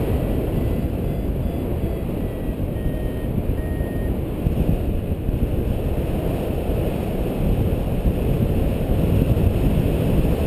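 Steady rush of wind buffeting the camera's microphone as a tandem paraglider flies through the air. A few faint short beeps sound between about one and four seconds in.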